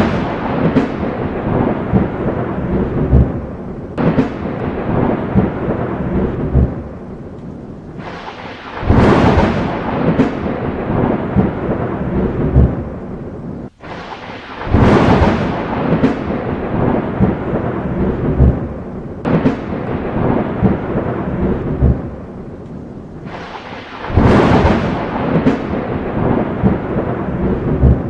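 Thunderstorm: steady rain with repeated peals of thunder. Loud cracks near the start and about 9, 15 and 24 seconds in each fade into a long rumble. A brief abrupt gap comes about 14 seconds in.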